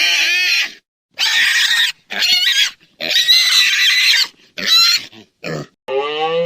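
A pig squealing in a series of loud, high-pitched bursts, about six of them with short pauses between. Near the end a different, lower and drawn-out animal call begins.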